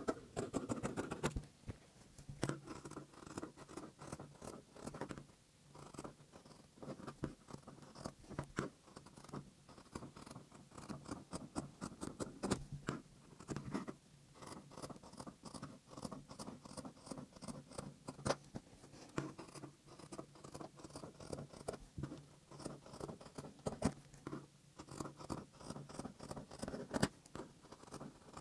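Scissors cutting cotton knit T-shirt fabric: a long, irregular run of short snips as the blades close again and again through the cloth.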